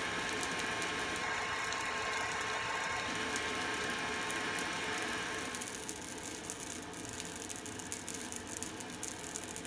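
Charcoal and coke fire in a brake-drum forge crackling and spitting sparks under forced air: rapid irregular ticks over the steady rush of the air blowing into the fire. The rush drops a little a bit over halfway through.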